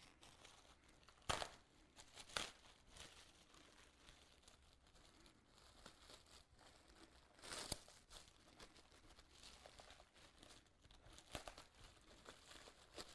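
Faint rustling and crinkling of a body shroud being handled, with a few sharp crackles scattered through it.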